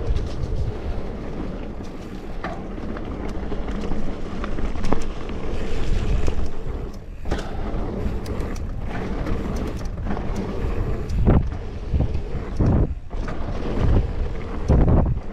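Wind buffeting the microphone of a helmet camera on a mountain bike moving fast down a dirt trail, with tyre noise on the loose dirt and repeated clicks and knocks as the bike rattles over bumps.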